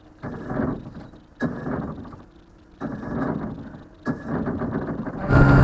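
Boat's outboard motor being started: four short bursts of cranking about a second and a half apart, then the engine catches just before the end and runs steadily with a high whine.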